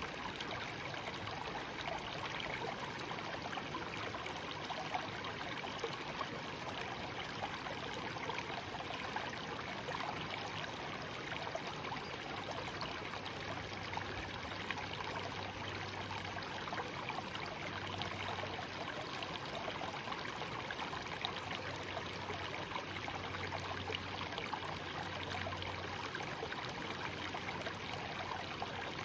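A shallow stream (seseragi) babbling and trickling over stones in a steady, even flow.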